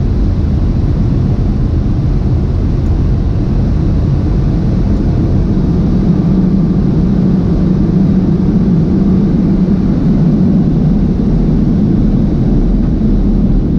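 Automatic drive-through car wash equipment running: a loud, steady rushing noise with a low hum that grows stronger about halfway through.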